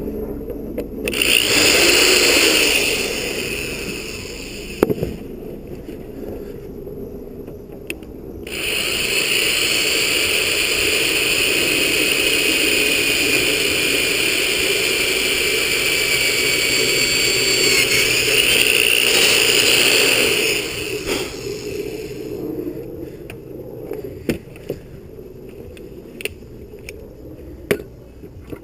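A small power tool running in two spells, a short one about a second in and a longer one of about twelve seconds starting about eight seconds in, with a high whine and scraping. Scattered clicks and knocks fall between and after the spells.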